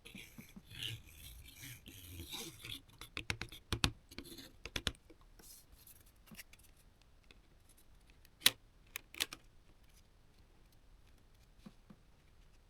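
Hard plastic pieces being handled: rubbing and scraping at first, then a quick run of sharp clicks and snaps, and a few single clicks, the loudest about eight and a half seconds in.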